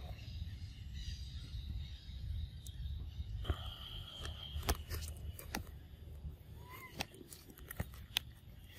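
Outdoor ambience: a steady low rumble of wind on the microphone, several sharp clicks or snaps, a short high call about three and a half seconds in and a brief chirp near seven seconds.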